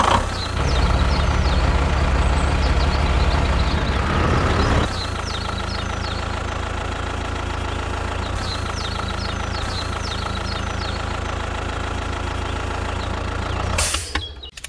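An engine running steadily with an even hum. It is heavier and louder for the first few seconds, then settles to an idle. The sound breaks off near the end.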